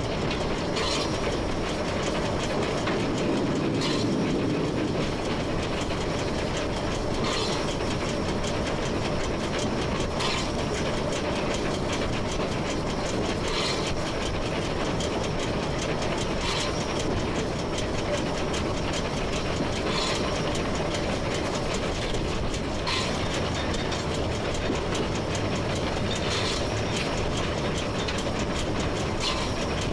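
Steady running sound of a 1925 La Meuse-built steam locomotive heard from its cab, with a faint click about every three seconds as the wheels pass rail joints.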